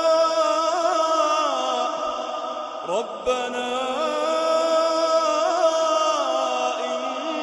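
Melodic Quran recitation: a solo voice draws out long held notes with ornamental turns. There is a short breath about three seconds in.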